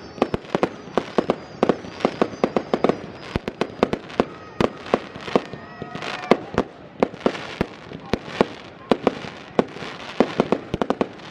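Fireworks display going off: a rapid string of sharp bangs and crackles, several a second, with faint whistling glides among them.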